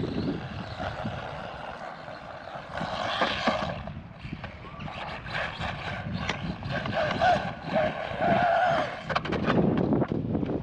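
The Arrma Mojave Grom BLX's brushless motor whining, its pitch rising and falling with the throttle, over tyre noise and scattered knocks as the small RC truck runs over rough ground. The whine is strongest in the second half.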